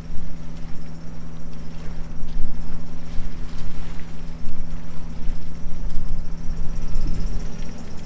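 Sailboat's inboard engine running steadily at cruising speed while motor-sailing, a constant low hum, with a gusty rumble of wind on the microphone.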